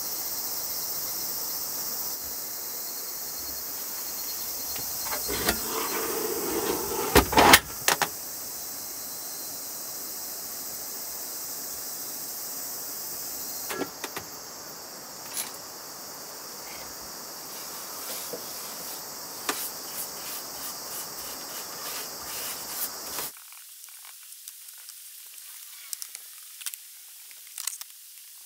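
Handling of a wooden fold-down table: a cluster of loud wooden knocks about seven seconds in as it is raised into place, then scattered light taps and clicks of work at it. All of this sits over a steady high hiss that drops away near the end.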